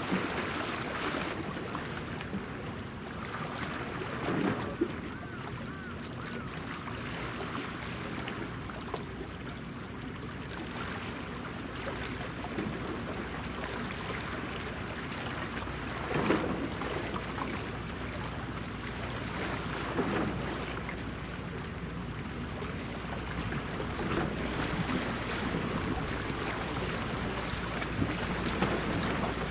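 Steady low hum of the helicopter destroyer JS Kaga's gas-turbine propulsion as she passes, under wind noise on the microphone and the wash of waves. The hum grows stronger about halfway through, and a few brief bumps stand out.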